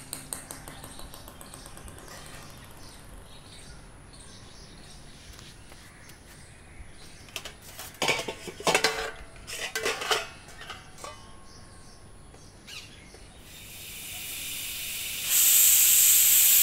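Steel pots, pans and cutlery clattering together in two quick bursts about eight and ten seconds in. Near the end a pressure cooker starts venting steam, its hiss building and then running loud and steady.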